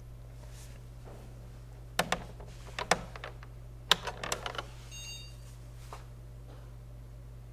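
Keys pressed on a beige desktop PC keyboard: sharp clicks in three quick clusters, the loudest about four seconds in. A short high electronic beep follows about a second later, over a steady low hum.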